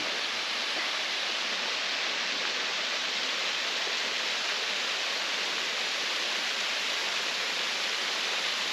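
Waterfall pouring: a steady, unchanging rush of falling water.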